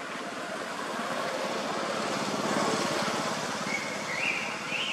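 A motor vehicle's engine passing, its sound swelling to a peak midway and then easing off. Near the end a high-pitched call starts up, rising in steps.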